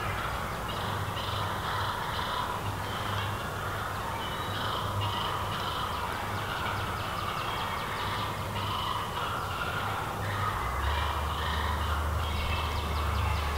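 Short bird calls repeated many times at uneven intervals.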